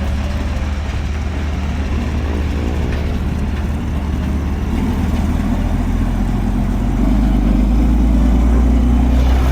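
Road traffic: vehicles running past with a steady low rumble that grows louder about seven seconds in.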